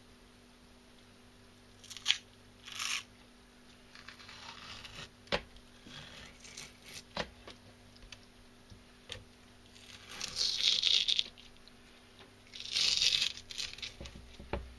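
Thin skin being peeled by hand off a raw horse mackerel fillet: short soft tearing and scraping sounds with small clicks, and two longer, louder tears about ten and thirteen seconds in.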